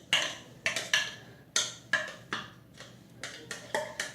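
Spoon or utensil knocking and clinking against a bowl while stirring slime, about nine sharp, irregular strikes.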